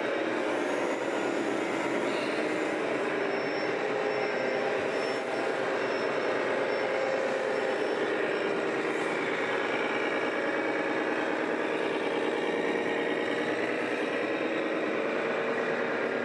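Radio-controlled scale trucks running, giving a steady engine-like drone.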